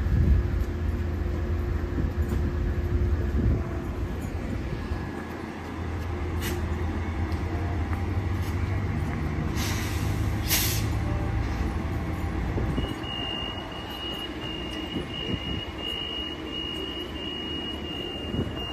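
Metrolink commuter train at the platform: a steady low diesel rumble with a hum, two short sharp hisses of air about halfway through, then a high beep repeating about twice a second through the second half.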